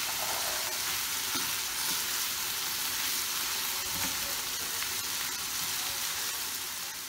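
Minced meat with diced peppers and tomato sizzling steadily as it fries in a frying pan, stirred with a wooden spoon that scrapes through it now and then.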